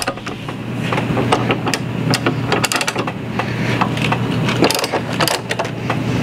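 Ratcheting bench vise clicking through a run of ratchet strokes as it is tightened to squeeze a polyurethane bushing into a suspension trailing arm, over a steady low hum.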